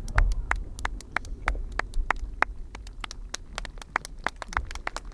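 Scattered handclaps from a few spectators, several a second, over the low rumble of the last firework shells, which fades away in the first second or so.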